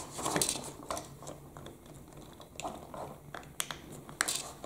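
Scattered light plastic clicks and taps, about half a dozen, as a toy telehandler's plastic wheel arch is worked in and out of its 3D-printed holder by hand.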